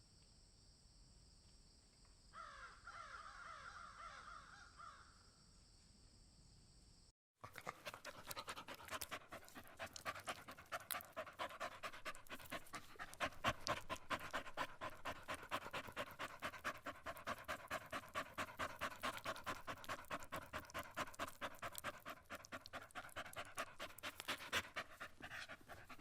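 Crow-like cawing calls for a few seconds, then after a short break about seven seconds in, a dog panting in quick, even breaths.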